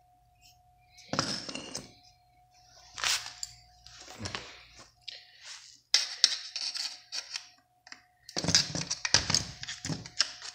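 Metal clinks, knocks and scrapes as an alternator and loose metal tools are handled during disassembly, in several separate bursts, the loudest near the end.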